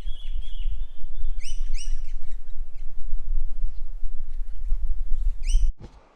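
A bird calling outdoors: a held high whistle, then a quick series of rising chirps, with another short burst of chirps near the end. Under it runs a steady low rumble that cuts off suddenly near the end.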